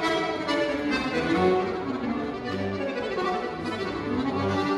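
Diatonic button accordion played solo: a fast polka melody over short bass notes.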